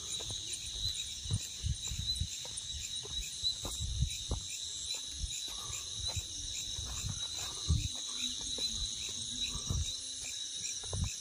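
Night chorus of crickets trilling steadily with a fast even pulse, over irregular low thumps of footsteps and handling on the microphone.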